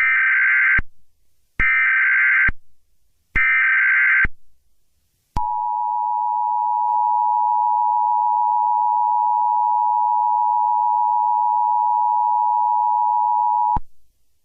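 Emergency Alert System tones: three short bursts of SAME header data tones about 1.7 seconds apart, then the steady two-tone EAS attention signal held for about eight seconds before it cuts off.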